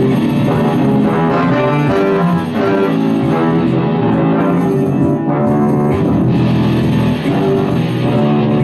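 Instrumental music.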